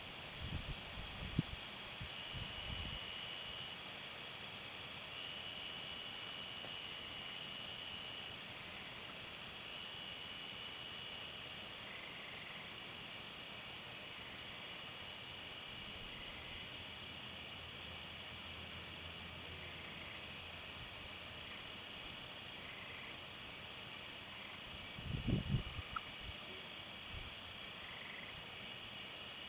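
Steady night chorus of crickets and other insects, with a higher trill that comes and goes for a second or two at a time. A few low bumps sound near the start and again near the end.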